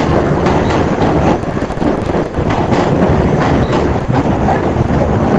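New York City subway train running past close alongside the platform, with a steady rumble and clatter of wheels on the rails. Wind buffets the microphone.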